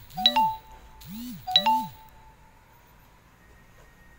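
An electronic chime sounds twice, about a second and a half apart. Each time it is two low swooping tones followed by a sharp, bright ding that rings briefly.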